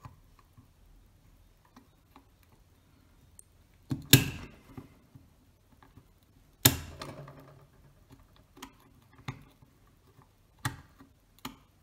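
Sharp clicks and knocks of steel lens-spanner tips against a Contaflex IV shutter ring, as the spanners are set and forced against a stuck ring that will not unscrew. The loudest knock comes about four seconds in and another a few seconds later, followed by lighter ticks.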